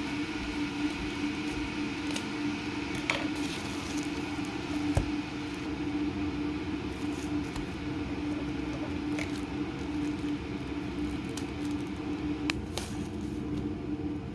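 A household appliance motor running with a steady hum, with a few light clicks and knocks over it.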